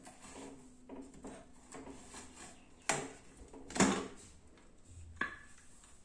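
Pressure cooker lid being twisted loose and lifted off the pot: a few sharp metal clanks and knocks, the loudest about four seconds in, with light handling noise between them.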